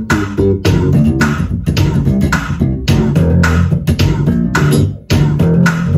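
Electric bass guitar playing a funk bassline over a drum beat, with a short drop in the music about five seconds in.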